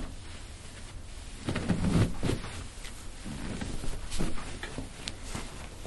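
Soft rustling of clothing and a few light knocks and creaks as a patient's leg is bent and moved on a padded chiropractic table.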